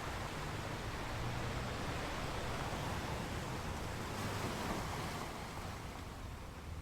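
Waves washing against rocks: a steady rush of surf that swells a little through the middle and eases slightly near the end.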